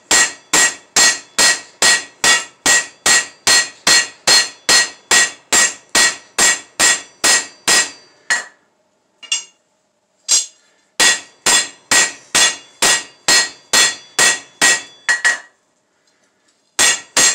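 Hand hammer striking red-hot steel on an anvil, about three blows a second, the anvil ringing with each blow. The hammering stops about eight seconds in and starts again a few seconds later, with a few last blows near the end.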